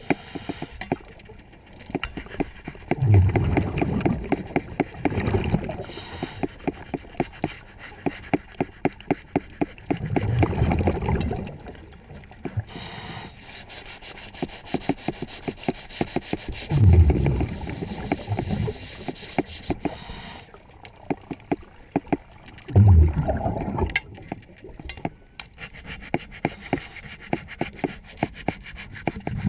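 Underwater: a diver's exhaled breath bubbling out of the regulator in a low rumble, four times about six seconds apart, over a steady crackle of sharp clicks and a scraper rubbing on the boat's hull.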